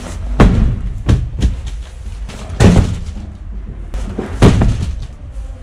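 A large cardboard box of Armaflex insulation thumping onto the bare sheet-metal floor of a van's cargo area as it is shoved in: a series of heavy knocks, the loudest about half a second, two and a half and four and a half seconds in.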